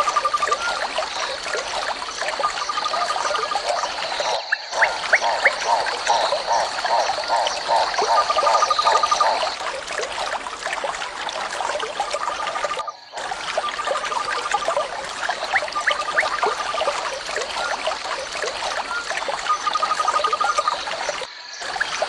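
Bird chorus of many small chirps, with a short rapid trill repeating every few seconds and a steady high whine through the first part. The sound breaks off for a moment three times.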